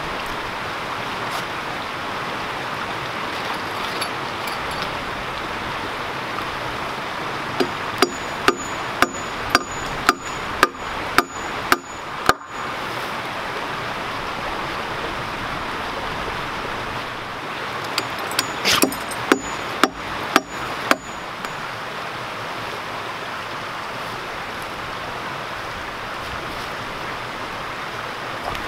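Hammer blows on a nail being driven into a locust pole, in two runs with a faint metallic ring: about nine sharp strikes at roughly two a second, then a pause, then about six more. A creek rushes steadily underneath.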